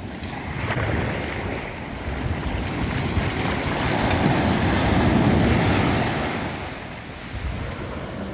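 Sea waves breaking on a beach: a small surge about a second in, then a bigger wave that builds, breaks and washes out over a few seconds before easing off.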